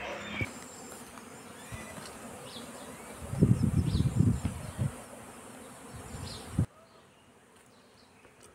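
Honeybees buzzing around wooden beehives, with one bee flying close past the microphone about three seconds in: a loud, wavering buzz lasting about a second and a half.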